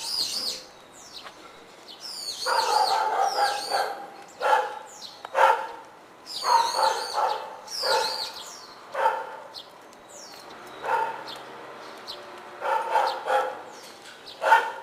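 A dog barking repeatedly, single barks and quick runs of two or three, with a bird chirping in the first half.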